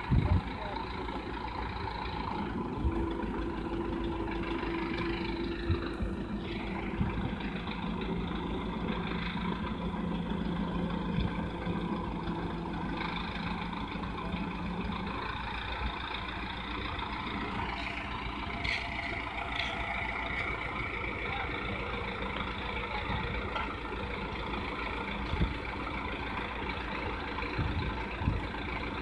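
Tractor diesel engine running steadily while powering a tractor-mounted pole-erection crane. A steady whine joins it from about three seconds in until about fifteen seconds in.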